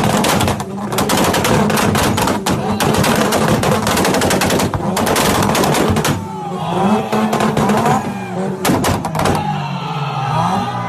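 Mazda RX-7 rotary engine firing a rapid, machine-gun-like string of exhaust pops and bangs. About six seconds in, the pops give way to the engine revving up and down.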